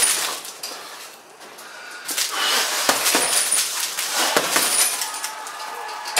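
Boxing-glove punches landing on a heavy bag made of stacked tyres wrapped in plastic: three sharp thuds, with a rattling noise between the later two.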